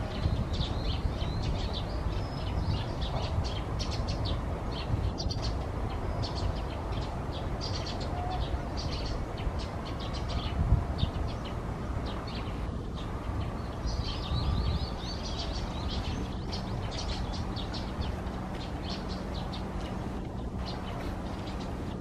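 Small songbirds chirping and twittering in many short, high calls throughout, over a steady low rumble.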